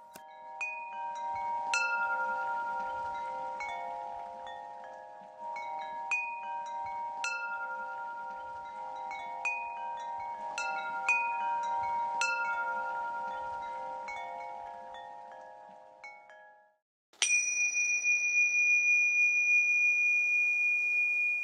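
Chimes ringing: bright notes struck every second or so over lingering lower tones, dying away about sixteen seconds in. Then a single high bell-like tone is struck and rings on steadily.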